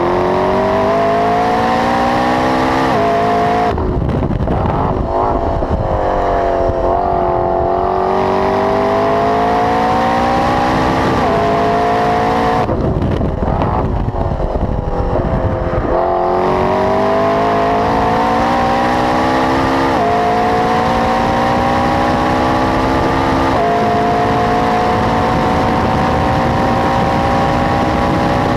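McLaren 12C's twin-turbo V8, fitted with an aftermarket Milltek exhaust, accelerating flat out through the gears: the pitch climbs and drops back at each of several upshifts. Twice, about 4 s in and about 13 s in, the driver lifts off the throttle for a few seconds and the steady note gives way to a rough crackle before he accelerates again.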